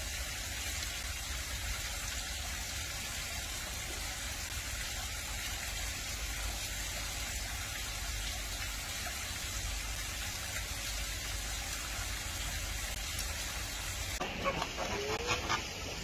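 A steady, even hiss with no distinct events for most of the stretch. About fourteen seconds in it gives way to flamingos calling: short goose-like honks with quick rising and falling notes, and a few sharp clicks.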